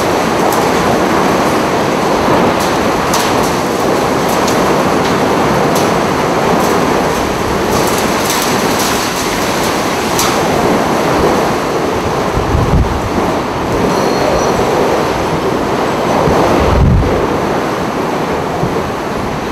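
Hurricane-force wind and driving rain blowing steadily, a loud, continuous, train-like rumble. It carries scattered sharp ticks, and two low thumps of wind buffeting the microphone about 13 and 17 seconds in.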